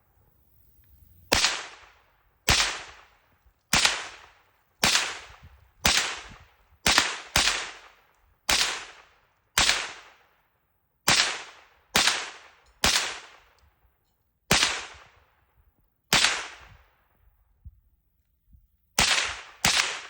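A Stag 15 AR-type rifle with a CMMG .22 LR conversion kit fired semi-automatically, about sixteen shots roughly a second apart with a quick pair near the end. Each shot is followed by a long echo that dies away.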